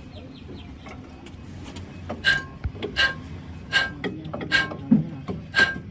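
Hammer blows on metal: five sharp strikes, each with a short ringing tone, spaced about three-quarters of a second apart and starting about two seconds in.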